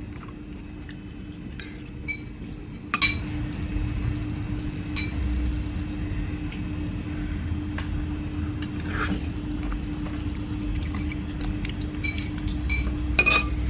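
A metal fork and spoon clink and scrape against a ceramic bowl in a few scattered clinks. The loudest clink comes about three seconds in and a cluster comes near the end, over a steady low hum.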